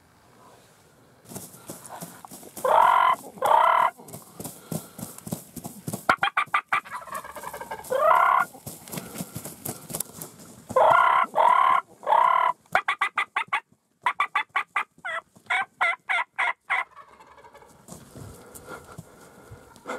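Wild turkeys calling: several loud gobbles, then near the end a quick run of about four yelping notes a second. In the first half there is rapid wing-flapping, from a shot turkey flopping on the ground.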